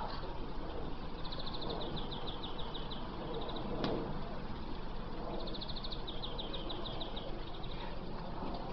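A songbird singing: two bursts of rapid, evenly repeated high notes, about ten a second, over a steady low outdoor rumble, with one sharp click just before the middle.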